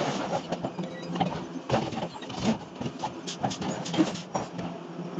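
Forging machinery at work: irregular knocks and clanks, several a second, over a steady machine hum.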